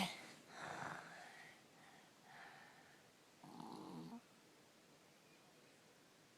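Young child snoring, the snoring worsened by strep throat: a fading breath about half a second in, a fainter one around two and a half seconds, and a short pitched snore at about three and a half seconds.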